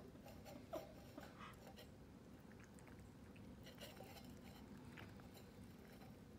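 Faint wet chewing as a puppy eats lychee from a stainless steel bowl, with scattered small clicks, a cluster in the first two seconds and a few more around four seconds in.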